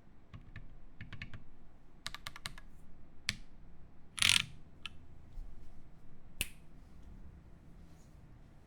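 Typing on a Satisfaction 75 mechanical keyboard with lubed Alpaca linear switches, an FR4 plate and GMK keycaps. Scattered keystrokes come with a quick run of about five near two seconds in, and one louder, longer stroke comes about four seconds in; the keystrokes thin out toward the end.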